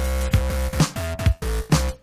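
Electronic background music with a steady beat of about two drum hits a second, over a held bass and short melody notes.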